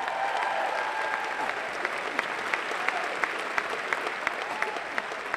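Audience applauding and cheering, with a held shout in the first second and one person's sharp claps standing out at about three a second.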